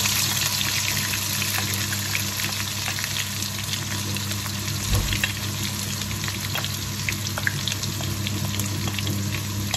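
Chopped onions sizzling in hot oil in a wok: a steady hiss dotted with small crackles as they are stirred with a spatula.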